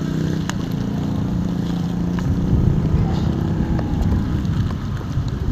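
Motorcycle engine running with a steady low hum. After about two seconds a low rushing noise of wind on the microphone and water under the wheels takes over as it rides through flood water.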